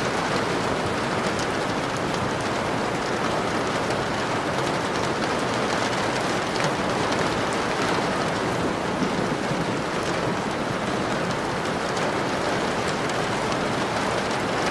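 Steady rain falling, a continuous even hiss with a fine crackle of drops.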